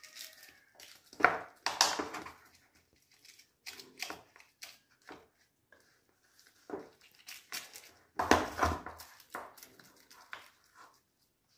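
Silicone spatula scraping and patting thick, grainy mohanthal batter smooth in a paper-lined metal tin, in short irregular strokes. A louder scrape with a dull thump comes about eight seconds in.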